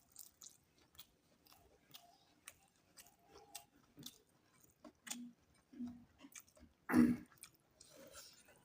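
Close-up eating sounds: chewing, with many small wet mouth clicks. Several short low sounds come around five to six seconds in, and one louder, longer sound about seven seconds in.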